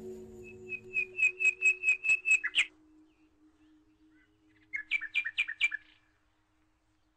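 A bird singing: a quick run of about ten repeated whistled notes, then, after a pause of about two seconds, a shorter run of five.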